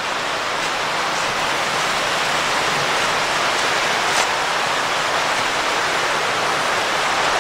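Tall waterfall pouring: a steady, even rush of falling water.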